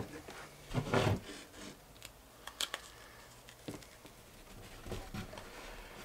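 Quiet handling noises as a self-adhesive Velcro strip is squared up and pressed onto an elastic shotgun shell holder: fabric rubbing, with a louder bump about a second in and a few light clicks and taps after it.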